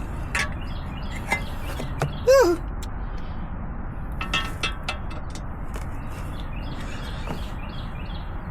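Scattered light clicks and knocks from handling tools and parts over a steady low background rumble, with one short animal call that rises and falls in pitch about two seconds in, the loudest sound.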